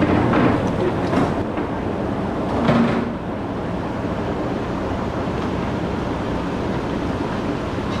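Steady rumbling background noise, with a couple of brief louder sounds in the first three seconds.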